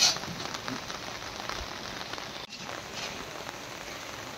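Steady patter of rain on floodwater, with a short splash of water right at the start as floodwater is scooped out with a vessel.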